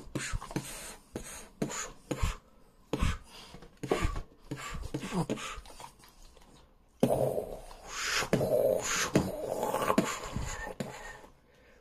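A man making owlbear monster noises with his mouth: breathy huffs, hisses and growls mixed with short clicks, getting louder from about halfway through.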